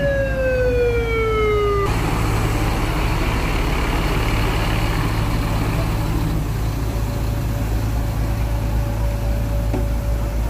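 A siren winding down, one tone falling steadily in pitch, cut off about two seconds in. Then the engine of a Brimob Barracuda armoured vehicle running with a steady low hum.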